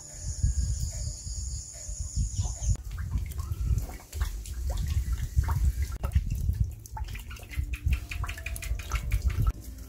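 Water pouring from a bamboo spout and splashing onto stones and wooden slats, with many small drips and splashes in the second half. A steady high-pitched hiss runs through the first three seconds.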